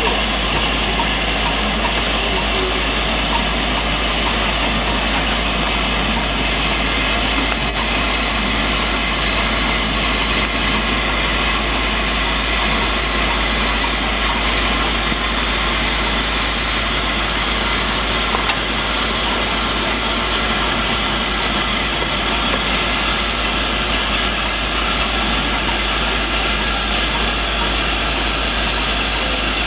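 LMS Black 5 steam locomotive giving off a steady hiss of steam while it is turned on a turntable.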